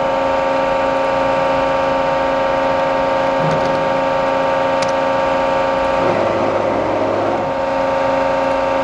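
A Cincinnati hydraulic CNC press brake's hydraulic pump and 25 hp main drive motor running with a steady, many-toned hum-whine. About six seconds in, a rougher whirr rises over it for a second or so as the CNC back gauge moves along one axis.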